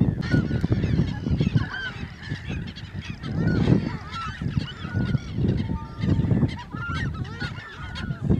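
A flock of waterbirds calling, with many short honking calls overlapping throughout. Under it is a loud low rumble that comes and goes every second or two.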